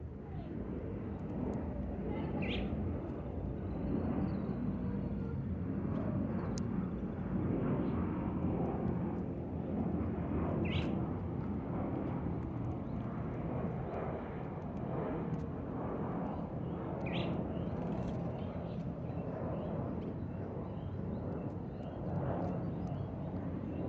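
A steady low rumble, like a distant engine, that swells a little in the middle, with three short bird chirps spaced several seconds apart.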